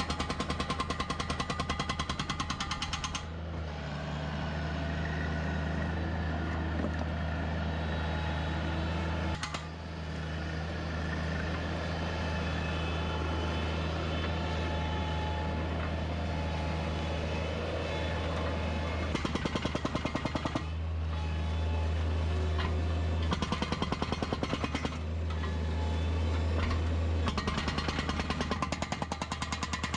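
Hydraulic breaker on a Bobcat mini track loader hammering on an old concrete sidewalk in rapid blows, breaking it up. For the first few seconds and again near the end the rapid hammering is loudest. Through most of the middle the loader's engine runs steadily, and there are short spells of hammering about two thirds of the way in.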